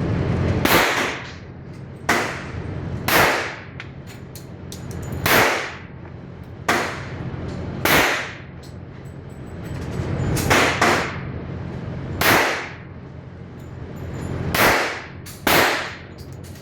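9mm pistol shots, about eleven over the stretch at uneven intervals, some in quick pairs, each sharp crack followed by a short echo off the range. A steady low hum runs underneath.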